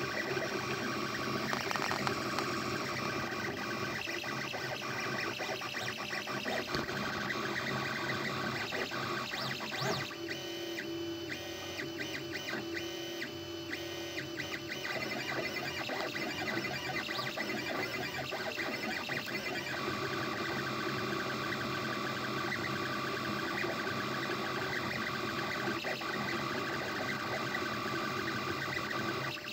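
A Prusa A6 FDM 3D printer printing: its stepper motors give off a steady blend of whining tones that shift in pitch as the print head and bed move. For a few seconds midway the set of tones changes, then the earlier pattern returns.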